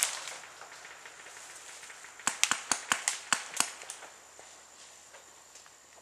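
Paintball markers firing a quick string of about eight sharp shots, starting about two seconds in and lasting about a second and a half.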